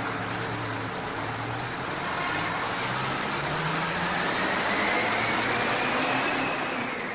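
A large road vehicle's engine running and accelerating, with a whine that rises steadily in pitch over a few seconds as it pulls away, growing a little louder.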